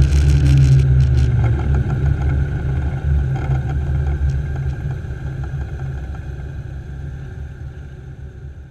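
Light aircraft's piston engine running low at idle during the landing rollout, with a rush of wind and tyre noise that dies away about a second in as the plane slows. The remaining low engine hum gradually fades.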